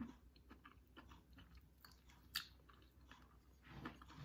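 A person chewing a mouthful of omelette with the mouth closed: faint, soft mouth clicks and smacks, with one sharper click about two and a half seconds in.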